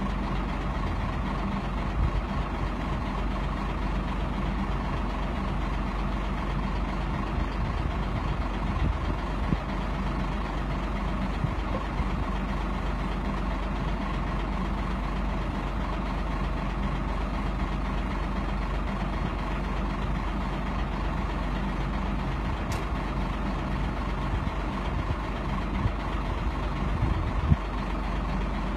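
Engine of a mobile boat crane running steadily with a low hum while the crane hoists a small boat out of the water, with a few light knocks, the clearest near the end.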